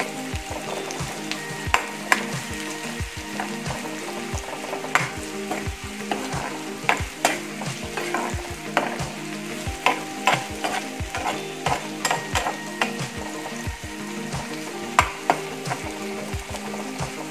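Sliced onions sizzling in hot oil in a kadai, being fried for beresta. A metal spatula stirs them, scraping and knocking against the pan at irregular moments throughout.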